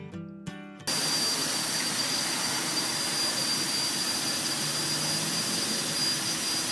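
Electric winch of a Rhino roof-rack boat loader running steadily, hauling an aluminium dinghy up onto the roof rack: a steady hiss with a thin high whine that starts abruptly about a second in.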